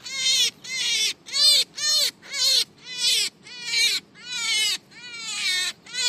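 A wild rabbit giving a quick series of high-pitched distress screams, about ten calls, each rising and then falling, one after another. It is crying out in fear and pain while snagged by its claws and fur and being handled to free it.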